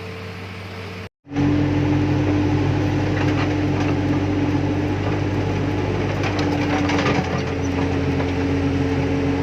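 Excavator's diesel engine running steadily with a constant whining tone over its low hum. After a brief cut about a second in it is louder, and the whine steps slightly lower in pitch about seven seconds in.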